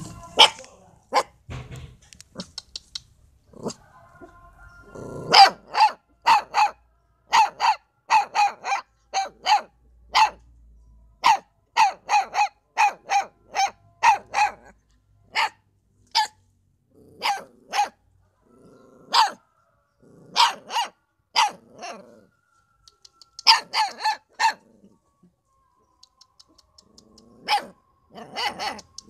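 A puppy barking at a stranger who has come close, in high, sharp yaps. The barks come in quick runs with pauses of a second or more between them, densest in the first half.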